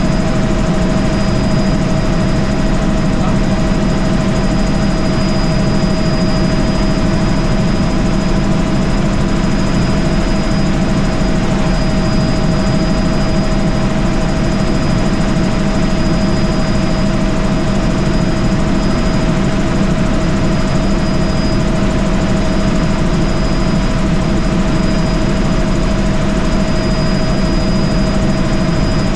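Helicopter cabin noise in cruising flight: engine and rotor drone, steady and unchanging, with a constant high whine over it.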